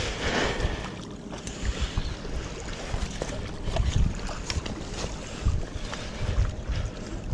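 Wind gusting over the microphone and water lapping against the rocks, with a brief rush of noise in the first second and faint clicks while a spinning reel is wound to retrieve the lure.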